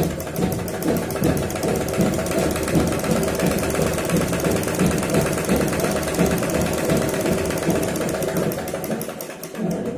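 Domestic sewing machine running steadily, stitching along the edge of cotton cloth with a rapid, even stitching rhythm that stops right at the end.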